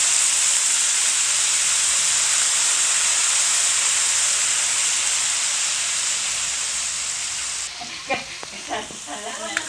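Food frying hard in a hot pan for a stir-fried noodle dish, a steady loud sizzle. The sizzle eases off about eight seconds in, followed by a few short clatters.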